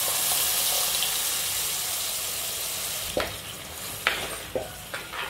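Hot oil sizzling as ground masala paste is poured onto frying onions in a black cooking pot, the hiss fading over about three seconds. Then a steel ladle stirs the paste, with a few sharp knocks against the pot.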